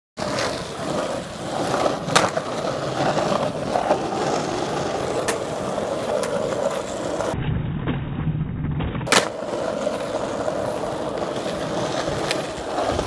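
Skateboard wheels rolling on asphalt with a steady rumble, broken by a few sharp clacks of the board popping and landing in flatground tricks, the loudest about two seconds in and about nine seconds in. For a second or two about seven seconds in the sound turns duller.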